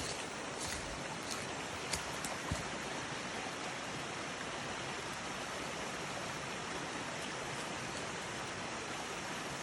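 Small creek waterfall, water rushing steadily with a good flow. A few light clicks in the first couple of seconds.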